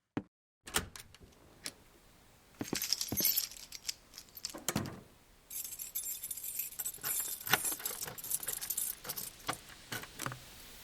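A bunch of keys jangling in two spells, a short one about a third of the way in and a longer one through the second half, with sharp clicks and knocks between them.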